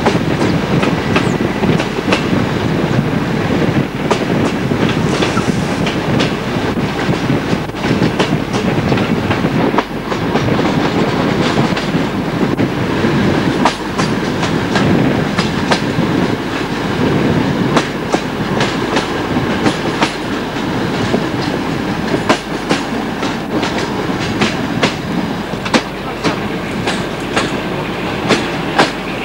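Passenger train running along the line, heard from an open carriage window: a steady rumble of wheels on rail with the clickety-clack of many sharp, irregular clicks as the wheels cross rail joints.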